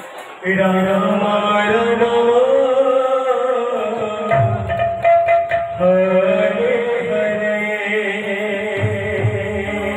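Male kirtan singer singing a devotional line through a microphone and PA, over a steady held drone. His voice comes in about half a second in, and a few drum strokes sound in the middle.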